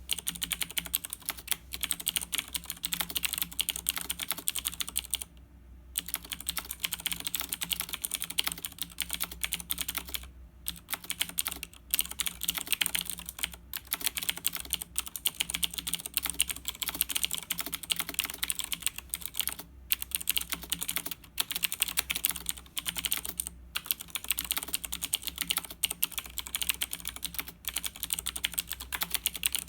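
Fast, continuous typing on a Razer BlackWidow 2013 mechanical keyboard, its clicky Razer Green switches clacking in quick runs. The typing pauses briefly a few times.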